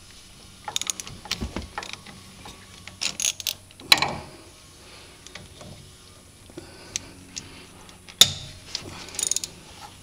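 Hand ratchet clicking in short bursts as a socket wrench turns out the brake caliper bolts, with two sharper metal knocks along the way.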